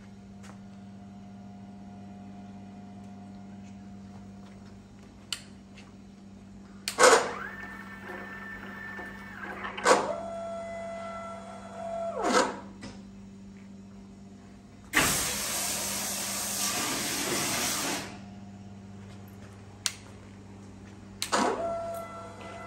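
Automatic bubble-wrap cutting machine's electric motors running in short bursts, each rising to a steady whine, holding for a second or two and winding down, over a steady low hum. About fifteen seconds in, a louder rushing noise lasts about three seconds.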